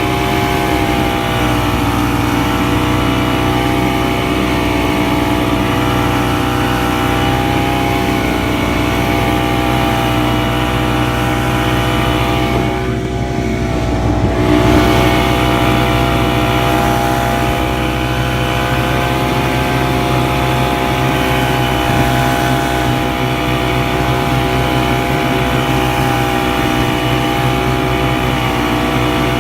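Vintage two-stroke snowmobile engine running at a steady speed, with a brief easing off about halfway through before it picks up again.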